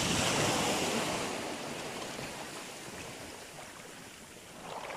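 Small waves washing over a pebble shore at the water's edge, a hiss that is loudest at the start and fades away over about four seconds.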